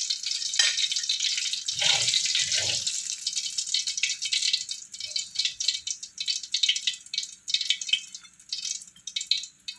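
Hot frying oil in a wok sizzling and crackling as fried fish is lifted out. The crackle thins into sparse pops as the oil settles with the flame turned off, with two soft thuds about two seconds in.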